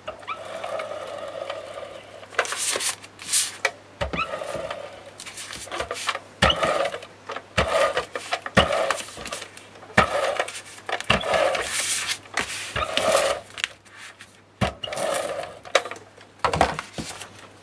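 Handheld adhesive tape runner rolled across kraft cardstock in about a dozen short strokes, each with a click as the tip is set down or lifted off, laying strips of adhesive along the edge of a book cover.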